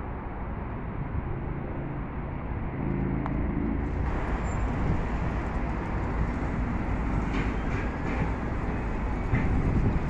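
City street ambience: a steady low rumble of road traffic, with an engine hum standing out for about a second around three seconds in.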